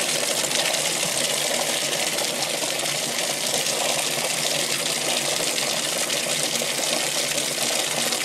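Bathtub faucet running steadily, water splashing into the tub and draining past a newly fitted drain hair catcher.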